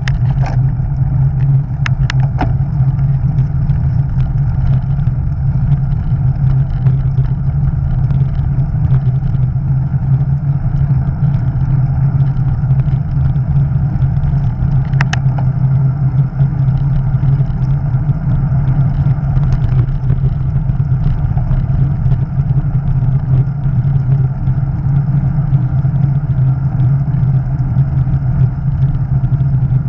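Steady low rumble of travel at a camera mounted on a moving vehicle: drone and wind noise, with a few faint clicks around two seconds in and midway.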